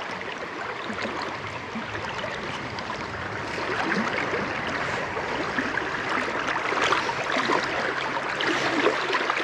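Fast river water rushing steadily over a shallow riffle close by, a little louder about a third of the way in.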